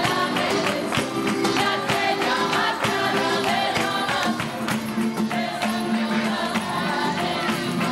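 Background music: singing over a tambourine, a Spanish Christmas carol (villancico).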